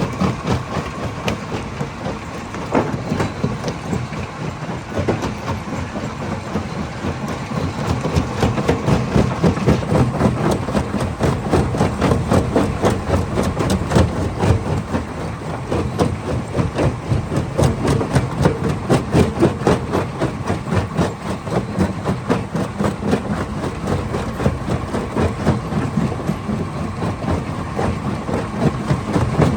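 Hammer crusher running as it breaks rock: a continuous, rapid clatter of stone being struck, over a steady machine hum.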